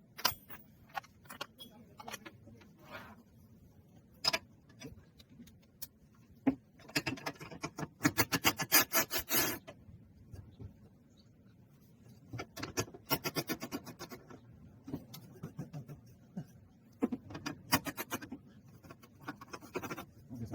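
Ratchet wrench clicking in two quick runs while a nut is turned, between scattered metallic clicks and clinks of hand tools.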